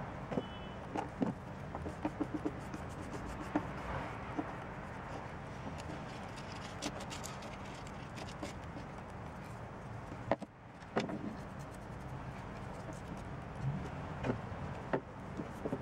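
Small scattered clicks and taps of steel pins, a plastic cup and wooden handle scales being handled on a workbench, over a steady background hum.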